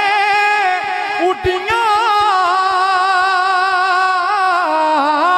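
A man singing a Punjabi devotional kalam into a microphone over a PA, drawing out long held notes with wavering, ornamented pitch. There is a short break a little over a second in.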